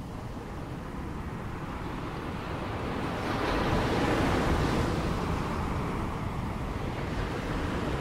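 Ocean waves: a steady wash of surf over a low rumble, swelling into a louder breaking wave about halfway through, then easing off.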